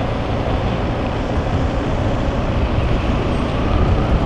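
Steady ride noise of a KTM 390 Adventure motorcycle at low speed: a continuous low rumble from wind on the microphone and the running bike, with city traffic around it.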